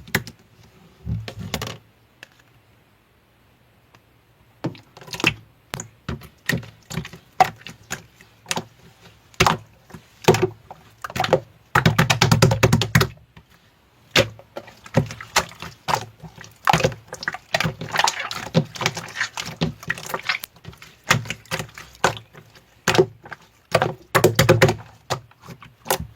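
Slime being squeezed and poked by hand: an irregular run of sticky clicks and small wet pops, with a couple of denser squishing stretches and a brief lull a couple of seconds in.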